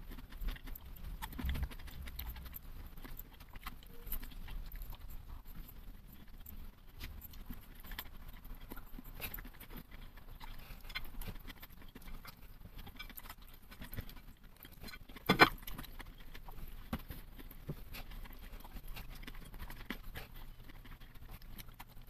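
Close-up eating sounds of fried rice: chewing and small mouth sounds, with light clicks of chopsticks against a plate scattered irregularly and one sharper click about two-thirds of the way through.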